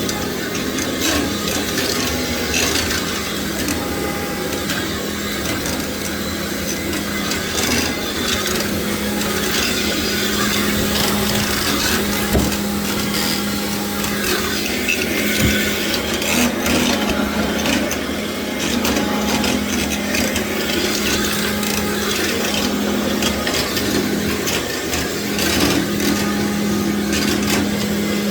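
Commercial vacuum cleaner running steadily over a tile floor. Its motor keeps up a steady hum and a rushing of air, dotted with many small crackles and scrapes as the floor head works across the tiles.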